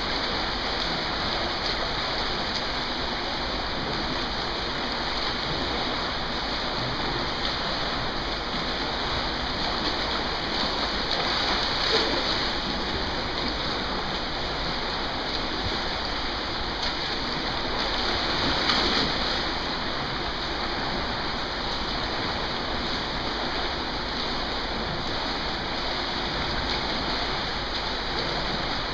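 Steady splashing and churning water from several swimmers doing freestyle laps in a pool, louder twice, about 12 and 19 seconds in.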